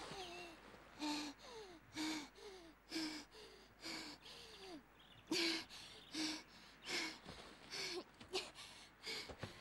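A young person's ragged, gasping breaths, about one a second, each with a little voice in it and some dipping in pitch, as of someone exhausted and distressed after a fight.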